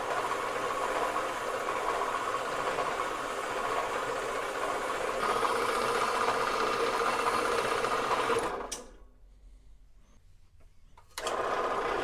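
Metal-cutting bandsaw running steadily as it cuts through cold-rolled steel bar. The sound dies away about nine seconds in, is near silent for a couple of seconds, then starts again abruptly near the end.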